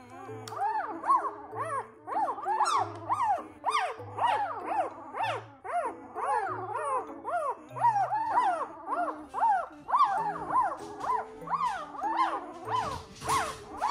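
Newborn Noble Shepherd (wolf–German Shepherd hybrid) puppy crying: a continuous run of short squeals that rise and fall in pitch, about two or three a second. Background music with a steady bass line plays underneath.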